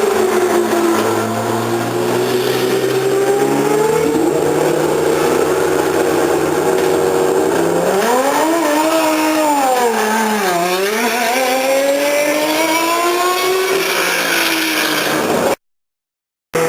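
Single-seater racing car engines running at high revs, their pitch falling sharply about ten seconds in and then climbing again as the revs build back up. The sound cuts out completely for about a second near the end.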